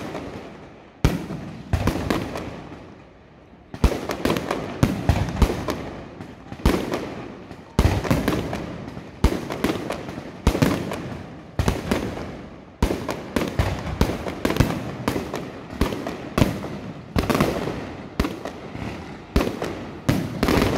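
Aerial firework shells bursting in a string of sharp bangs. A few come singly in the first seconds, then from about four seconds in they fire in dense volleys of several a second.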